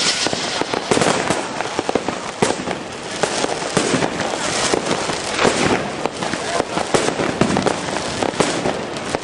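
Fireworks going off continuously: a dense, unbroken run of overlapping bangs and crackles with no pauses.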